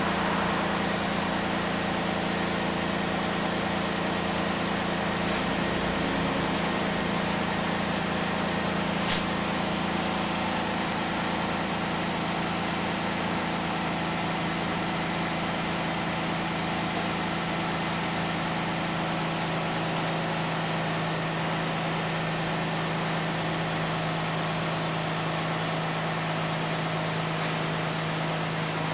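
A 2000 Lexus RX 300's 3.0-litre V6 idles steadily through an aftermarket Delta dual exhaust with the factory resonator, heard at the tailpipes. Just after start-up, the idle note settles a little lower about ten seconds in as the revs come down. There is one faint click about nine seconds in.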